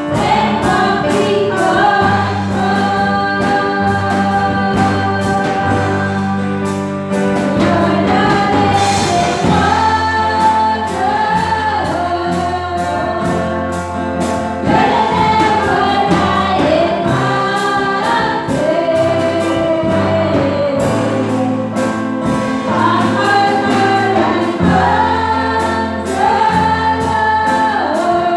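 Live gospel worship song: women's voices singing a melody together into microphones over amplified instrumental backing, with steady bass chords and a regular beat.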